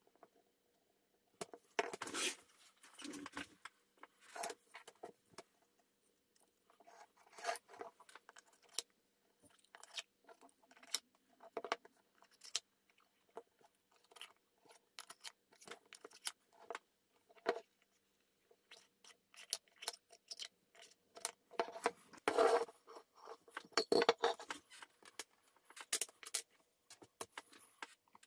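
Small wooden parts of a scroll-sawn model being handled: irregular light clicks, taps and scrapes of wood on wood and on the bench as panels are lifted off and fitted. The clicking is busiest about two seconds in and again a little before the end.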